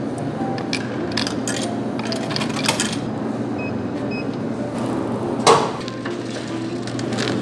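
Snack vending machine in use: a run of clicks and taps at the coin slot and keypad, a couple of short beeps as a key is pressed, then a thud about five and a half seconds in as the snack drops into the delivery bin.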